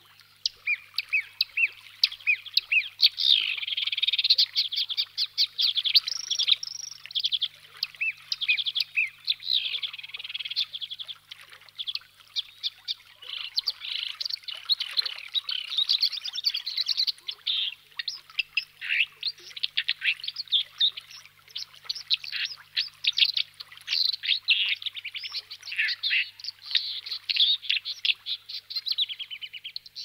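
Songbirds singing and chirping, several voices overlapping in a dense run of quick, high chirps and trills.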